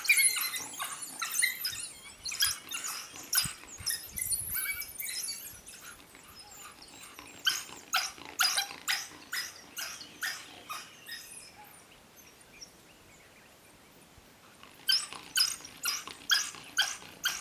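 Pack of African wild dogs calling in rapid series of short, high-pitched twittering calls while they hold a leopard treed. The calls thin out about two-thirds of the way through, then start again near the end.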